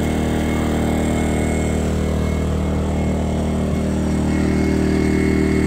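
Portable gasoline generator engine running steadily with an even hum, growing slightly louder about four seconds in.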